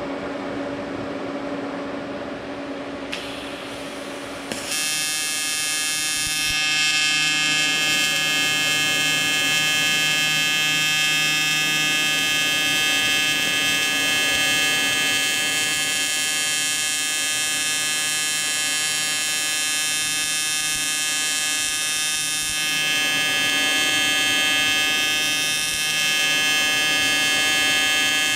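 AC TIG welding arc buzzing steadily on a cast aluminum motorcycle engine case, striking about five seconds in after a quieter hum. The arc is reflowing the casting to boil out pores and impurities before any filler is added.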